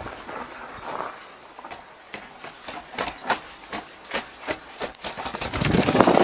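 Mountain bike tyres rolling over a wooden plank boardwalk, knocking in a quick, uneven clatter as the wheels cross the boards. Near the end a rising rush of wind on the helmet camera's microphone takes over as the bike picks up speed.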